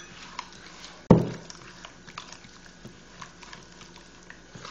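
Fingers beating a runny egg, sugar and oil mixture in a bowl, with small wet splashes and clicks. There is one sharp knock about a second in.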